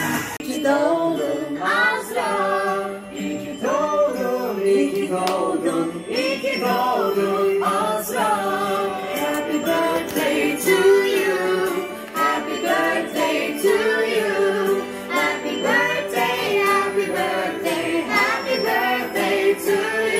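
Background music with a sung melody.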